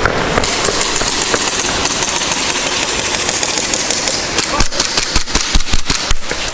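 Airsoft gunfire in the field: a loud, steady rush of noise, then a quick irregular run of sharp cracks lasting about two seconds, starting about four seconds in.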